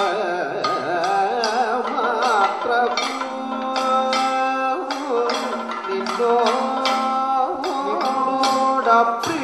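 Kathakali accompaniment music: a male vocalist sings a wavering, ornamented melody over frequent sharp strokes of a chenda drum.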